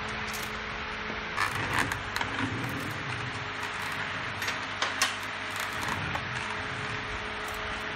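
Light metallic clinks and taps of small nuts and hand tools as nuts are fitted at the rear axle of a Honda CT110, a few short strokes scattered through, over a steady workshop hum.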